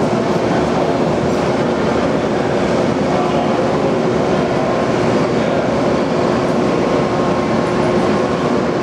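Steady, loud drone of idling diesel railway equipment, with a constant hum running through it, echoing off the walls of an enclosed underground platform.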